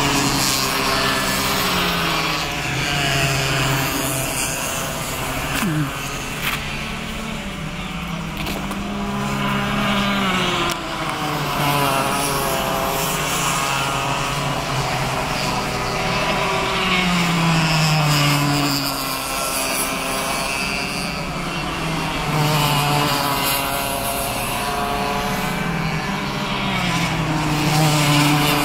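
Several cadet racing karts' small engines buzzing as they race past, their pitch repeatedly rising under acceleration and dropping off into the corners.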